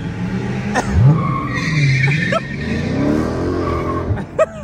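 Dodge Challenger Scat Pack's 392 Hemi V8 exhaust revving hard, its pitch shooting up about a second in, then dipping and climbing again.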